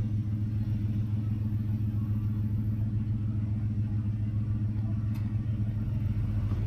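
A vehicle engine running at a steady idle, an even low hum with no revving.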